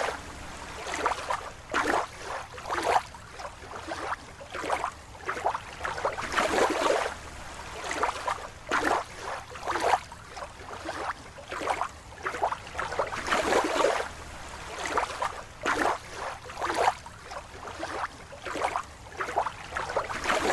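Water splashing and sloshing in irregular swishes, about one or two a second.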